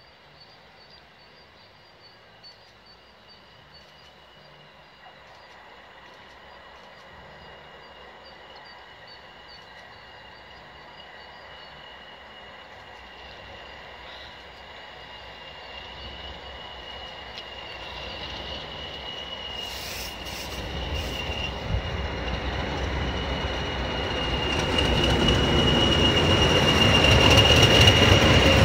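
British Rail Class 20 diesel locomotive 20205 approaching on its own and passing close by, its English Electric engine growing steadily from faint to loud. A steady high whine runs through it and strengthens as it nears, with a deep rumble building over the last several seconds.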